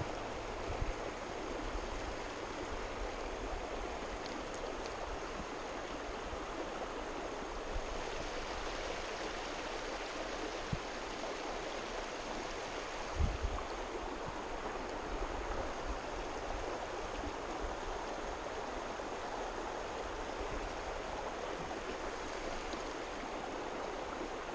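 Shallow river water running over rocks: a steady rushing babble of a riffle, with a few brief low thumps, the strongest about halfway through.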